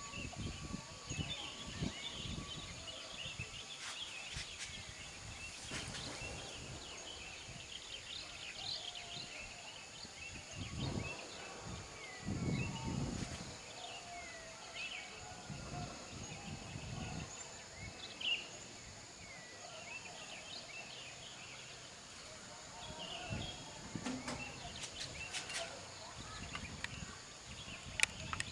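Small birds chirping and calling, with short low rumbles now and then, the strongest about halfway through.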